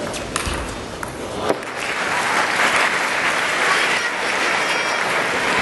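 A table tennis ball struck a couple of times with sharp clicks as the rally ends, then the arena crowd applauding the point from about two seconds in.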